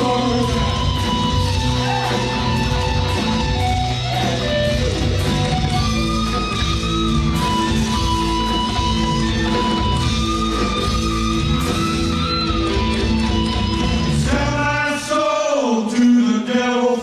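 Live blues-rock band playing: electric guitar over bass and drums, with held melodic notes. About two seconds before the end the band cuts out and a man's voice comes in at the microphone.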